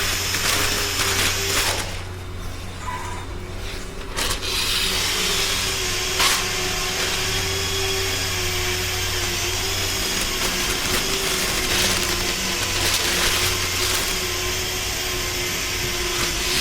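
A power tool running steadily with a steady whine. About two seconds in its hiss drops away for a couple of seconds, then picks up again.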